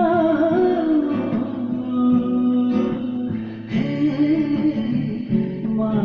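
Acoustic guitar playing a Nepali song with a voice singing along, the voice sliding down in pitch in the first second before the guitar carries on with held notes.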